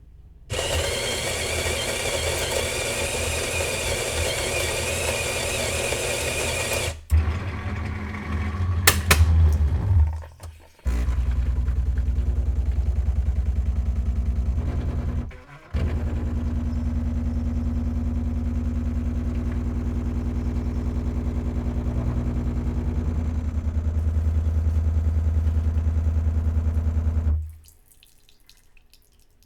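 Terra Kaffe TK-02 coffee machine grinding beans for about six seconds, then clicking and clunking for a few seconds, then its pump humming steadily as the coffee brews, in two long stretches with a brief break. The machine stops shortly before the end.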